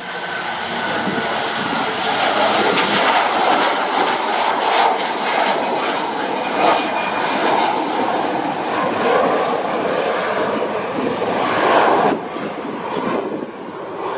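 Airbus A330 jet engines running, loud and steady after building up over the first couple of seconds, then easing off about twelve seconds in.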